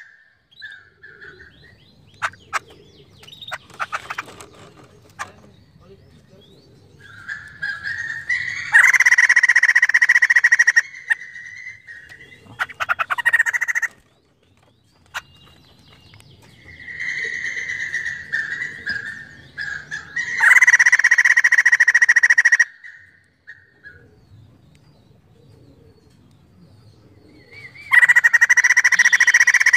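White-crested laughingthrush (poksay jambul) calling loudly. There are three bursts of its harsh, chattering chorus, each about two seconds long, with softer calls between them. A few sharp clicks come about two to five seconds in.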